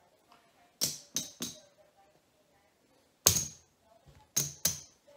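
Poker chips clacking as they are picked up and set down on the craps layout: three quick clicks about a second in, a louder single clack a little after three seconds, and two more near the end.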